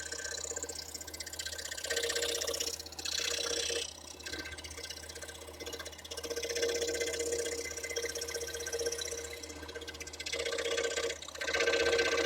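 Scroll saw running and cutting wood, its blade stroking rapidly up and down; the sound swells and eases several times as the cut goes.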